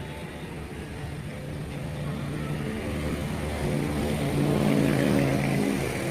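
A motor vehicle engine droning, growing steadily louder as it approaches and peaking about five seconds in.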